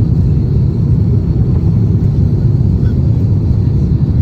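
Airliner cabin noise on final approach: a steady, loud, low rumble of engines and air rushing over the wing with its flaps extended.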